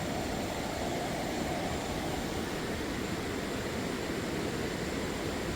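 Steady rushing of a mountain river.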